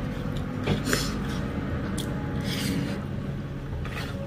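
Eating sounds close to the microphone: chewing and mouth noises, and fingers mixing rice against a steel plate. A few short sharper noises come about a second in and again around two to three seconds in, over a steady low hum.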